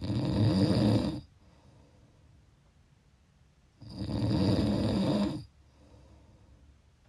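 Snoring: two long, rattling snores about four seconds apart, the first at the very start and the second about four seconds in, each lasting a second and a half or so, with quiet breathing gaps between.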